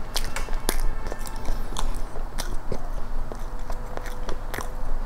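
Close-miked chewing of a mouthful of soft chocolate cream cake: irregular mouth clicks and smacks, a few each second.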